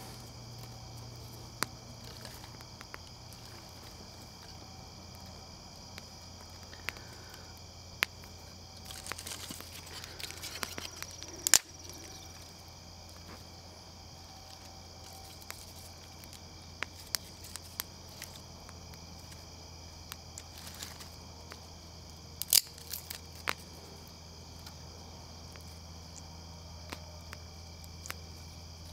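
Insects such as crickets chirring steadily in woodland, over a low steady hum, with scattered sharp clicks and snaps. The loudest snaps come about a third of the way in and again about three quarters through.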